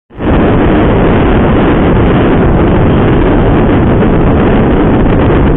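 Loud, steady wind rush on the microphone of a Honda SP125 motorcycle ridden at about 75 to 90 km/h, with no clear engine note standing out of it.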